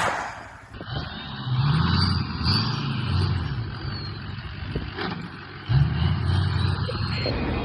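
Ford 6.0 Powerstroke V8 turbo-diesel truck engine running, with a sudden louder surge about two-thirds of the way through.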